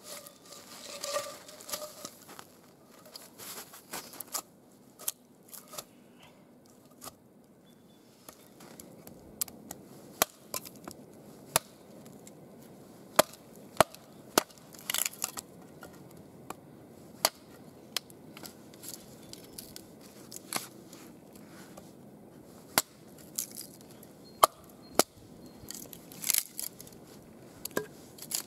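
Hatchet chopping and splitting wood into kindling: irregular sharp chops and cracking knocks as the pieces split. Crunching footsteps in snow in the first couple of seconds.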